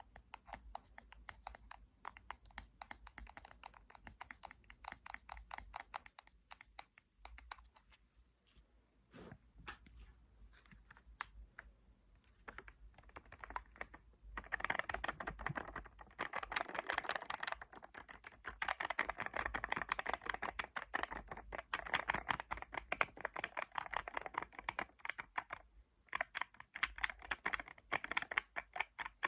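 Rapid, continuous tapping on a handheld object for ASMR, a quick stream of small clicks. It thins out and softens a little before halfway, then comes back denser and louder for the second half.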